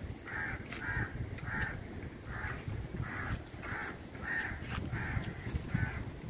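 A crow cawing over and over in a steady run, about three caws every two seconds.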